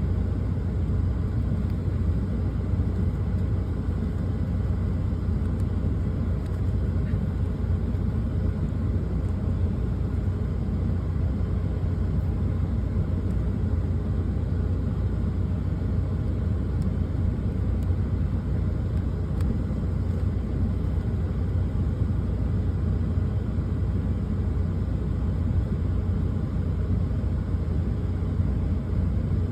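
Steady low rumble of a truck's running engine, heard from inside the cab.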